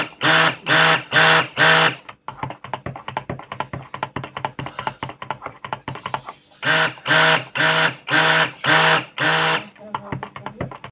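Stick blender running in short pulses, about three a second, in raw soap batter, blending it toward light trace. Between the two loud stretches it runs more quietly with a fast ticking.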